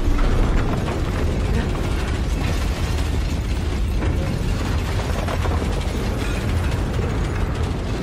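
Sustained rumble from a nuclear explosion: a dense, steady roar with a deep low end and constant rattling, like a building being shaken.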